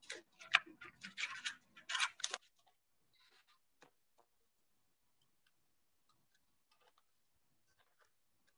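Sheets of paper rustling and being shuffled close to the microphone for about two seconds, followed by a few faint rustles and ticks.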